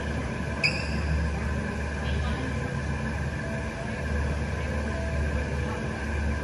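Steady low hum of a large indoor sports hall, with a single short squeak about half a second in, typical of a court shoe on the floor.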